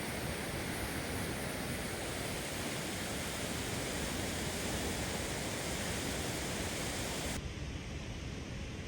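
A steady, even rushing noise with no distinct events. About seven seconds in, its high end drops away suddenly, leaving a duller rush.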